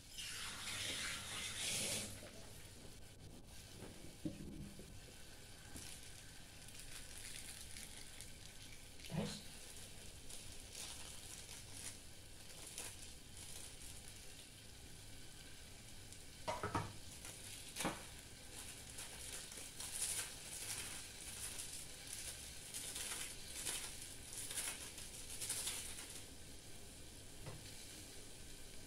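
Pot of instant noodles and greens cooking on a gas stove: a faint, steady sizzling crackle, louder for the first two seconds, with a few sharp clicks around the middle.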